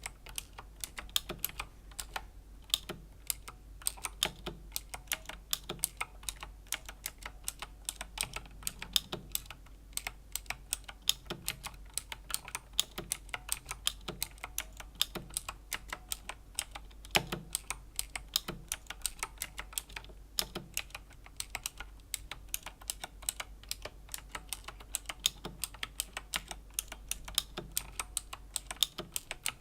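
Slow, steady typing on a Razer BlackWidow Chroma V2 mechanical keyboard with Razer Green clicky switches: a continuous, irregular run of sharp key clicks, several per second.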